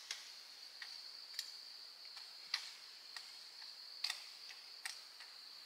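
Dry sticks and brush cracking and snapping in sharp, irregular ticks, about two a second, over a steady high insect drone.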